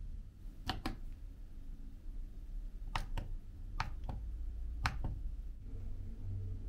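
Button presses on a Daikin air-conditioner wall controller: four short, sharp clicks spread over about four seconds, each followed by a fainter second click. A low steady hum lies underneath.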